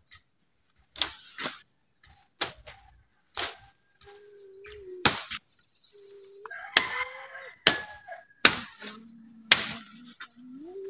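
Sharp cracking strikes of a long wooden pole hitting tree branches, about one a second, with short whining animal cries between some of them.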